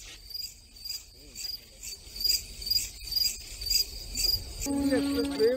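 Crickets chirping in steady, evenly repeated high-pitched pulses, with a man's voice starting near the end.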